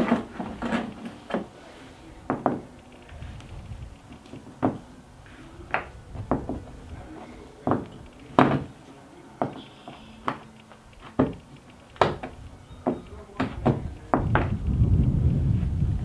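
Irregular hard plastic clicks and knocks, a couple dozen of them, as a bungee cord plug and its installation tool are worked into the deck fitting of a Hobie kayak. A low rumble comes in near the end.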